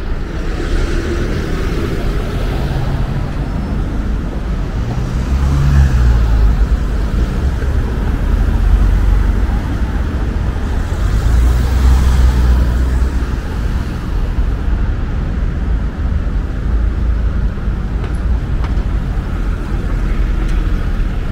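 Road traffic on a city street: the steady noise of cars passing, with louder vehicles going by about five seconds in and again about eleven seconds in.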